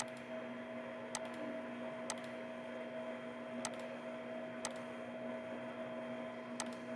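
Steady low electrical hum, with about six sharp computer mouse clicks spaced a second or so apart.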